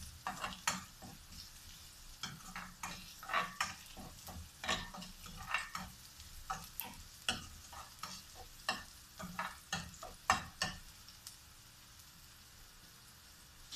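A spoon scraping and tapping against a metal frying pan as garlic and onion are stirred, with a faint sizzle of frying underneath. The stirring stops about eleven seconds in, leaving only the low sizzle.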